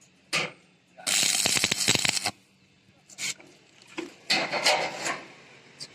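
Stick welding with a 6013 rod: short arcs crackling and sputtering for about a second at a time, twice, as tack welds are laid. Between them come sharp clicks of the electrode and metal being tapped.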